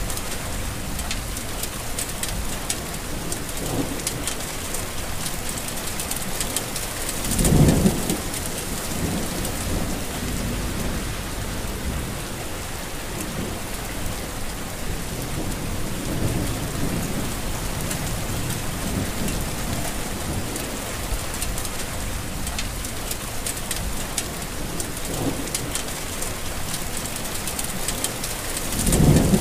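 Heavy rain falling steadily, a dense even hiss. Two brief low rumbles swell up, about seven seconds in and again near the end.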